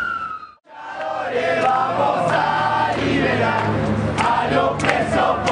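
A siren's tone tails off at the start and cuts out, then a crowd of demonstrators chants together, many voices at once.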